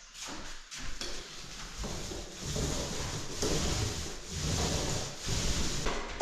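Slow rubbing strokes of a hand tool across a surface, about one a second, each a long scraping hiss.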